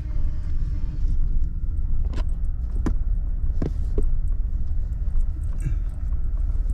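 Steady low rumble of a truck driving slowly over a dirt yard, heard from inside the cab. A few sharp clicks and rattles come in the middle.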